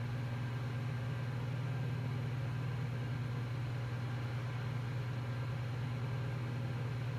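An IBM PC XT (5160) running, with a steady low hum and a faint hiss from its power-supply fan and spinning hard drive.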